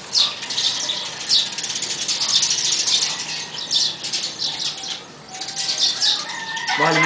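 Small birds chirping busily, a dense run of quick high chirps that thins out briefly about five seconds in.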